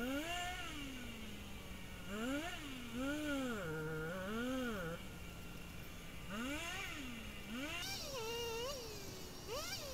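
Chainsaw being worked on a fallen tree across the track, its pitch rising and falling over and over as the throttle is opened and eased, with short steadier stretches between.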